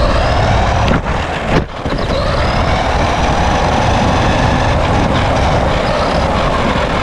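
An RC car's electric motor whines as it speeds up and then holds a steady high pitch at speed. Heavy wind and tyre rumble go with it, heard from the GoPro mounted on the car. About a second and a half in there is a short knock and a dip in the sound, like a bump.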